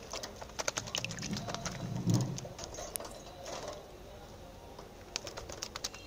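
Budgerigar bathing in a shallow water dish: quick splashes and wing flutters in the water, in short irregular clicks, with a brief low sound about a second in. The splashing thins out in the second half.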